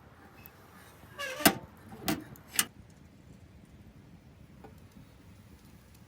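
A brief scraping rustle followed by three sharp clacks of hard objects knocking together, about half a second apart, the first the loudest.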